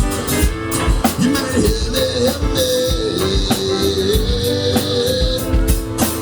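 Rock band music: a drum kit keeps a steady beat under guitar, with a wavering, held melody line running through the middle.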